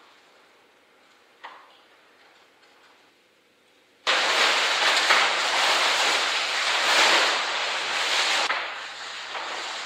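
Near silence with one faint tick, then about four seconds in a loud rustling and crackling of large sheets of black paper being crumpled and shifted starts abruptly and carries on, swelling and easing.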